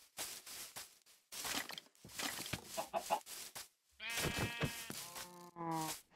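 Farm animal calls: a run of short, rough calls a few times a second, then about four seconds in, three longer calls that fall in pitch.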